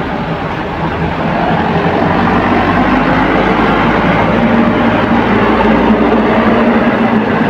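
Diesel engine of a sugarcane-laden light truck running under load as it pulls slowly past close by. A steady, loud engine note that grows a little louder about a second in.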